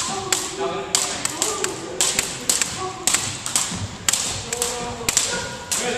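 Double dutch jump ropes, beaded plastic ropes, slapping the hardwood gym floor again and again as they are turned: a stream of sharp taps, two or three a second and unevenly spaced, from more than one pair of ropes.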